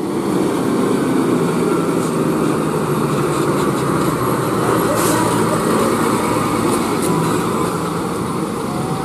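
Diesel cargo truck engine running steadily under load as the truck rounds a tight hairpin bend, a continuous low rumble.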